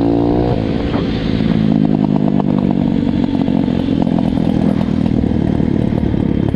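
Pit bike's single-cylinder four-stroke engine running under way: it revs up, drops in pitch about half a second in as the throttle comes off, then pulls steadily. Knocks and rattles from the bike run through it as it rides over a rough, rutted dirt track.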